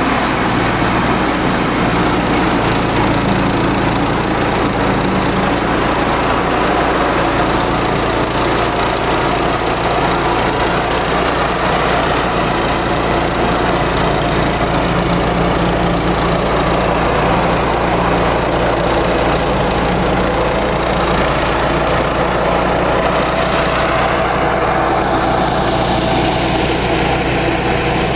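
Small engine-driven rice thresher running steadily, engine and threshing drum making a continuous mechanical drone.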